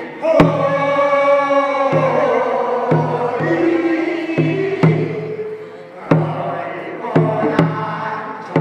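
Korean traditional field song (deulsori) sung by a group of elderly villagers, the chanted singing carried over sharp drum beats about once a second.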